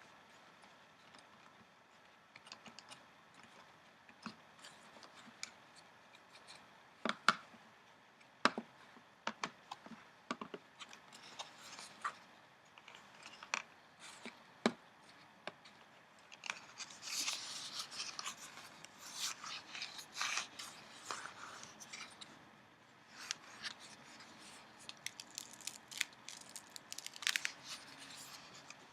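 Newspaper flier paper being handled: scattered sharp taps and clicks, then stretches of crisp crinkling and rustling as the pages are turned.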